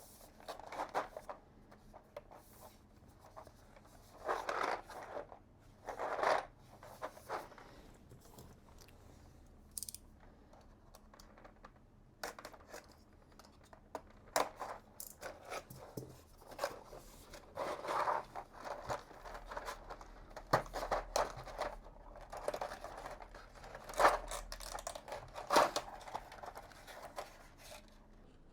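Packaging of a keycap set being opened and handled: irregular tearing, crinkling and scraping noises with scattered clicks.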